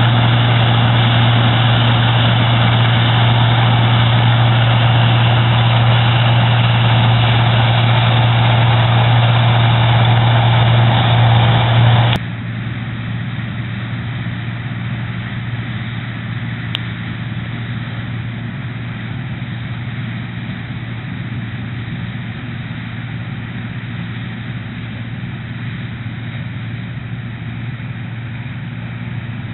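Claas Dominator 80 combine harvester running steadily while harvesting, a loud engine hum with machinery noise over it. About twelve seconds in the sound drops abruptly to a quieter, steady engine drone.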